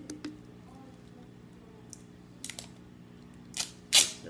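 Duct tape being pulled off the roll in a few short rasping rips, the loudest near the end, with light clicks of handling before them.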